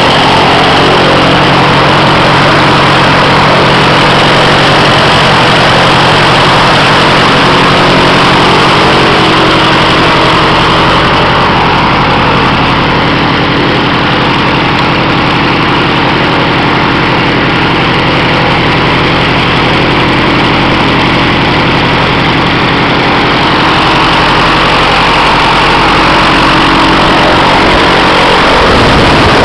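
Continental 4A032 four-cylinder horizontally opposed engine running steadily, turning an airboat propeller; very, very smooth.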